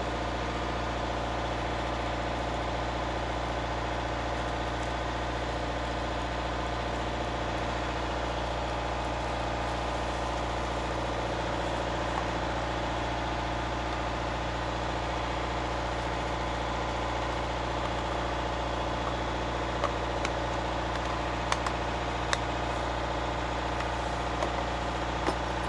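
A yacht's engine running steadily, a constant hum heard from inside the cabin. A few light clicks and knocks of gear being handled near the end.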